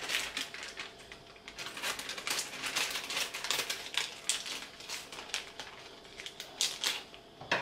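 Plastic bag of frozen vegetables crinkling in quick, irregular rustles as it is handled and snipped open with scissors.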